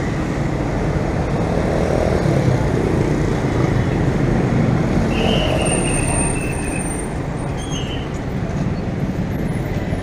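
City street traffic: cars and a jeepney passing close by on a wet road, their engines running and tyres hissing. A brief high-pitched tone sounds about halfway through, and another shortly after.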